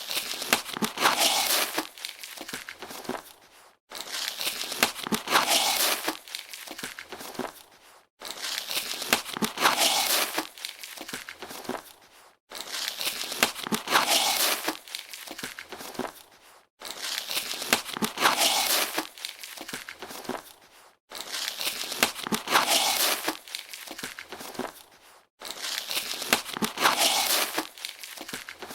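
A cardboard box being opened: sealing tape torn off and the cardboard handled, with crinkling, tearing and crackling. The same take of about four seconds repeats seven times, each with a short silent gap between.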